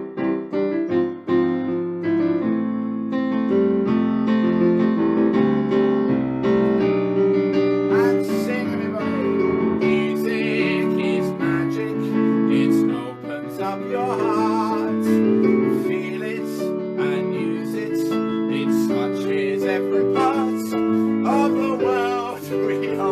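Piano playing sustained chords in an instrumental passage of a gentle song. From about eight seconds in, high wavering sounds and light clicks come in over the chords.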